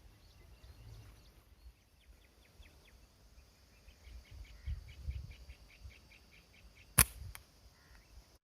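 A slingshot being shot: one sharp snap of the released bands about seven seconds in, followed by a smaller click. Before it comes a faint rapid series of high ticks, about five a second.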